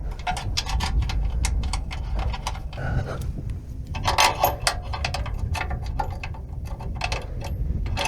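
Irregular metallic clicks and clinks of hand tools, a ratchet wrench and sockets, working on bolts under a pickup truck, over a steady low rumble.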